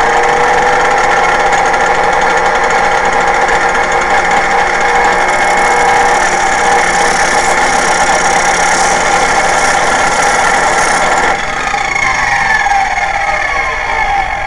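Electric bench grinder with an abrasive disc running at speed with a steady whine, a shotgun shell held against the disc adding a hissing grind from about halfway in. At about three quarters of the way through the motor is switched off and its whine falls steadily in pitch as the disc spins down.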